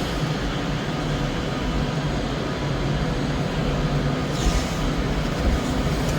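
Train in the station: a steady low engine hum and rumble, with a brief hiss about four and a half seconds in.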